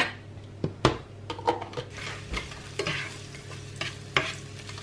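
A plastic spatula stirring and scraping frozen chopped onions and garlic around a nonstick frying pan, with a few sharp knocks against the pan. The onions fry in oil with a faint sizzle over a steady low hum.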